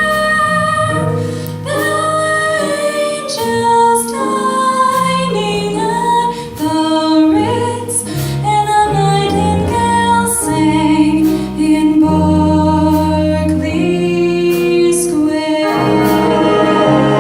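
Vocal jazz ensemble singing in harmony, female voices to the fore, over a bass line and instrumental accompaniment.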